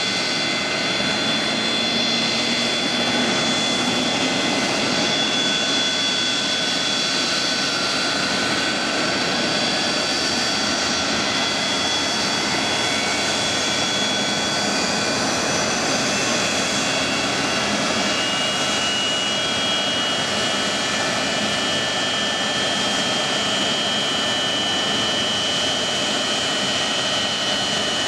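Boeing 737-200's two Pratt & Whitney JT8D turbofan engines running steadily on the ground: a constant jet roar with several high whining tones over it.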